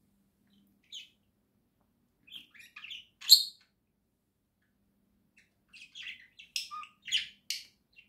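Budgerigar chirping and chattering in short high calls: a single chirp about a second in, a cluster around three seconds with one loud sharp call, then a quick run of chirps near the end.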